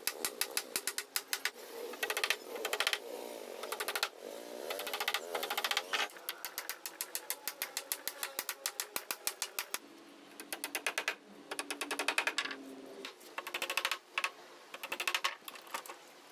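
Rapid runs of sharp clicks or taps, several a second, stopping and starting again every second or two.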